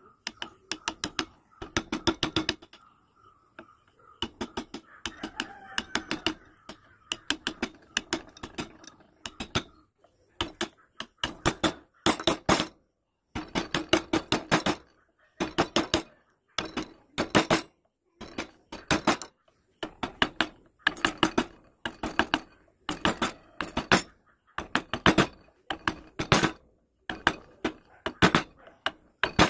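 Mallet tapping a carving chisel into wood: quick runs of sharp knocks, a run about every second.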